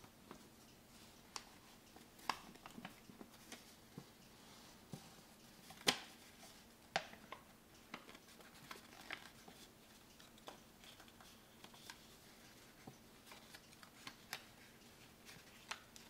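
A sheet of paper being folded and creased by hand: scattered crinkles and soft clicks, the sharpest about six seconds in.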